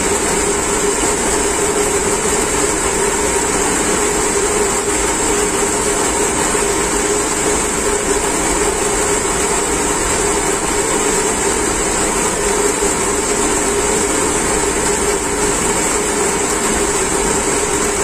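Electric-motor-driven centrifugal pumps running steadily: a constant mechanical hum with a high hiss over it.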